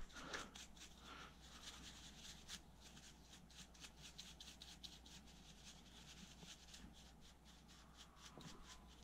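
Faint, repeated bristle strokes of a paintbrush scrubbing caked dust off a small graphics-card cooling fan, in short irregular rasps.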